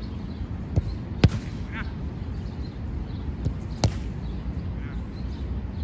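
Four sharp thuds of a soccer ball being struck, two close together about a second in and two more just before four seconds, over a steady low background rumble.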